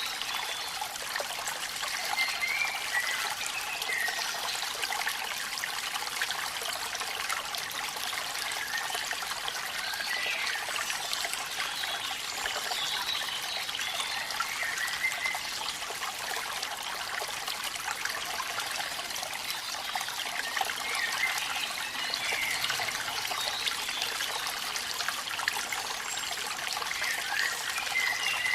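Waterfall and rain: a steady wash of falling, trickling water with little low rumble, with small bright gurgles breaking through every few seconds.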